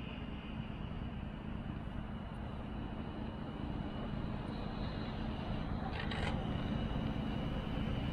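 A Translohr rubber-tyred tram approaching, its rumble of tyres and running gear growing steadily louder. A short hiss comes about six seconds in.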